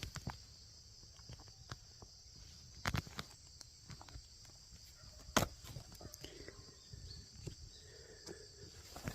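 Night insects chirring steadily at a high pitch, with scattered faint crackles and two sharp clicks, about three and five and a half seconds in.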